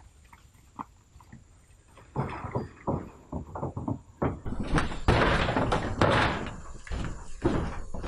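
Wooden plank door being knocked and shaken: faint taps at first, then from about two seconds in a run of sharp knocks that turns louder and denser into a rattling clatter for the second half.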